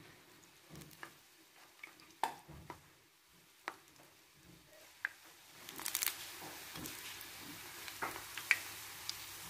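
Beignet dough frying in hot oil in a pan. After a few scattered clicks and taps, a sizzle starts about six seconds in and keeps going, with occasional sharp taps over it.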